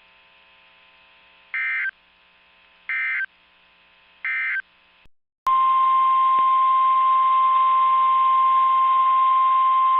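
Three short bursts of Emergency Alert System (SAME) digital data, the end-of-message code closing a National Weather Service warning, about a second and a half apart. Then, after a click about five and a half seconds in, the steady 1050 Hz NOAA Weather Radio warning alarm tone sounds, announcing the next alert.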